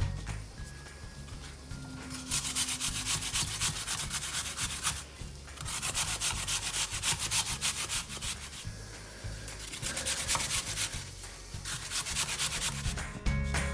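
Quick, even hand-worked scraping strokes in food preparation, coming in three runs of a few seconds each with short pauses between.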